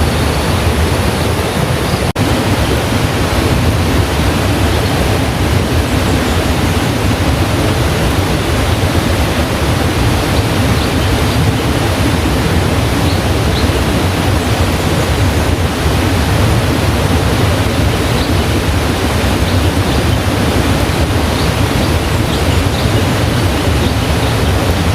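Heavy rain pouring steadily, a loud, dense, even hiss, with a momentary dropout about two seconds in.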